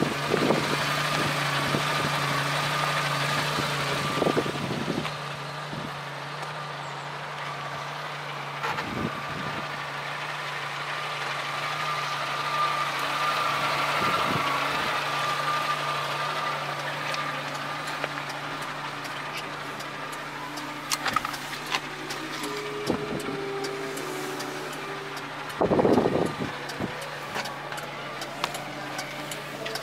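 DFSK mini truck's 1.3-litre petrol engine idling steadily, a low even hum with a faint whine over it. A few light knocks and one louder brief thump near the end.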